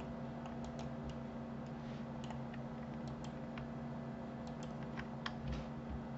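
Faint, irregular clicks of a computer mouse and keyboard, over a steady low hum.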